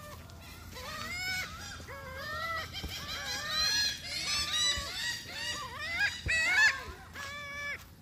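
A flock of laughing gulls calling: many short calls overlapping, starting about a second in, busiest through the middle and thinning out near the end.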